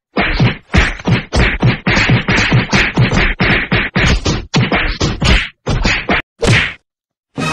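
A rapid run of punching and slapping blows, one person beating another, about three to four hits a second; the blows stop shortly before the end.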